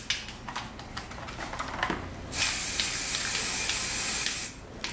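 Aerosol spray-paint can hissing in one burst of about two seconds, starting a little over two seconds in, while the tip of an airsoft rifle is being painted. A few light clicks and handling rattles come before it.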